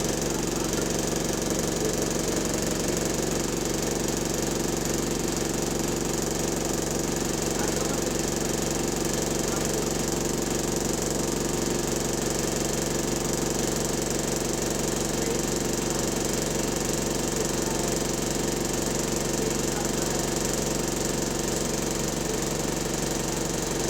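Bus diesel engine running steadily with a fast, continuous knocking in it, taken for engine rod knock.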